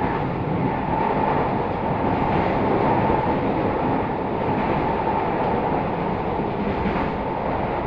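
Steady running noise of a Tobu 50070-series electric train heard from inside the passenger car, with a constant hum running under the rumble of the wheels on the track.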